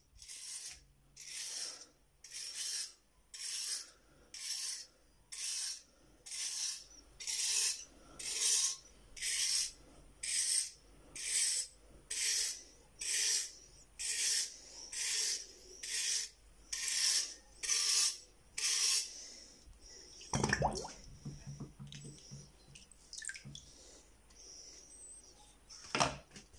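Wire brush scrubbing a wet, tarnished old metal vessel in long, even strokes, a little over one a second, about two dozen in all. Then the brushing stops, and near the end come two knocks of the metal vessel being handled against the plastic bowl of water it is set down in.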